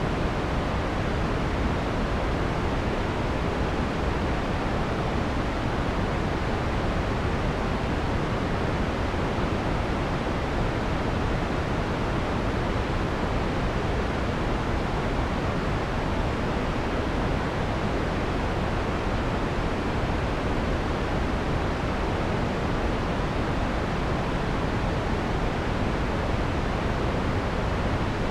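Steady synthesized white noise, filtered to take off the harsh highs so it sounds soft and full, close to pink noise; it does not change.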